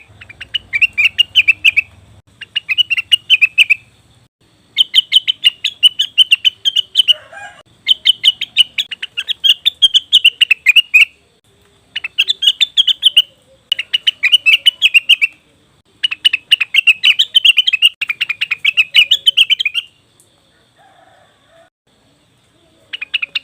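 Leafbird (cucak wilis / rengganis) calling in loud bursts of very rapid, chattering notes, about seven bursts of one to four seconds each with short pauses between, then a pause of about three seconds near the end. This is a lure call of the kind played to draw in other leafbirds.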